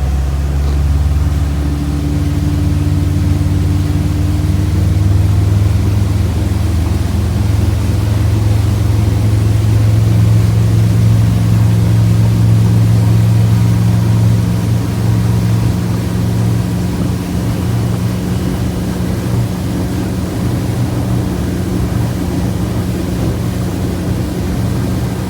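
Motorboat engine running steadily under way, a loud low drone with wind and water noise; its pitch edges up slightly about ten seconds in.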